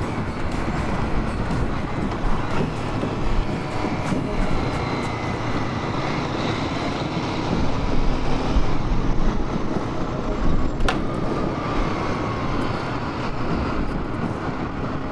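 Motorcycle on the move: a steady rumble of engine and wind noise, with one sharp click about eleven seconds in.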